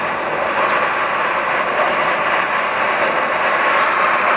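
Steady road and engine noise heard inside a car driving on a snow- and ice-covered highway while overtaking a snowplow truck, growing a little louder through the pass.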